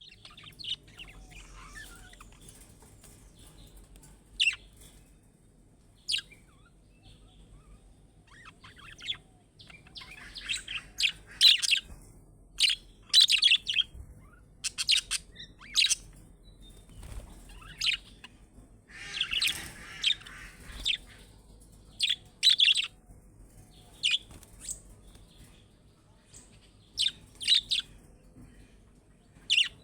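Budgerigars chirping: short, high chirps in scattered runs, busiest through the middle and again near the end, with one longer, harsher call about two-thirds of the way in.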